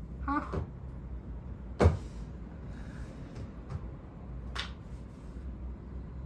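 A sharp knock about two seconds in, then a fainter click and a few small ticks, like things being handled and set down, over a low steady room hum.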